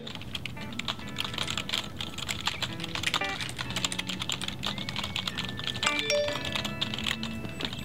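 Computer keyboard being typed on in dense, rapid clicks, with background music of held notes underneath.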